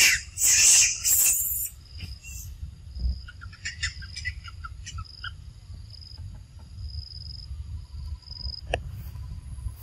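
Forest canopy sounds: a loud rustle of leaves and branches in the first second and a half as macaques move through the tree. This gives way to short, quick chirping calls and an on-and-off high, thin insect whine.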